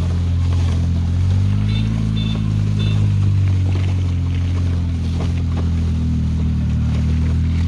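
Polaris vehicle engine running close by at a steady drone, its pitch rising briefly about two seconds in before settling. Three short high tones sound over it around the same moment.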